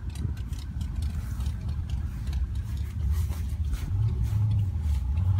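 A car engine running nearby, a low steady rumble that grows a little louder about four seconds in and begins to rise in pitch at the very end as the vehicle speeds up.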